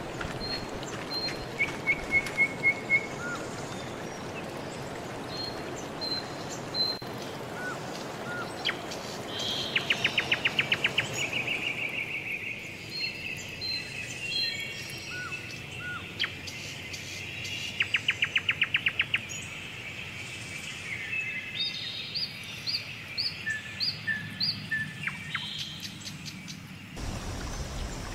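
Wild birds calling at a hillside campsite: a run of five quick whistled notes, two rapid trills and a scatter of short high chirps. A steady high hum lies underneath through the middle, and a low rushing noise fills the first half.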